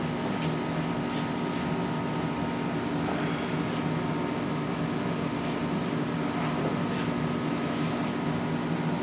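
Steady mechanical hum of room machinery, a constant low drone with a few faint ticks scattered through it.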